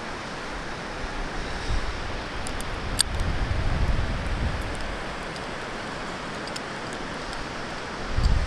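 Steady rushing noise on the microphone of a body-mounted camera as a bungee jumper dangles on the cord, with low wind buffeting about three to four seconds in and again near the end. A sharp click about three seconds in.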